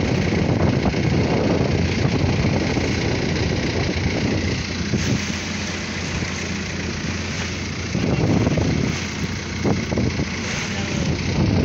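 A wooden fishing boat's engine runs steadily under way, with water splashing and rushing along the hull.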